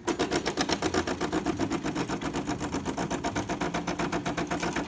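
DeLonghi Magnifica espresso machine's vibratory pump running to dispense hot water: a loud mechanical buzz with a rapid, even pulsing that starts suddenly.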